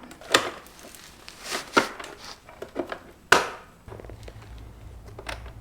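Plastic motorcycle fairing panels rustling and knocking as they are pushed into place, with three sharp snaps or knocks about a second and a half apart. A low steady hum comes in a little before the end.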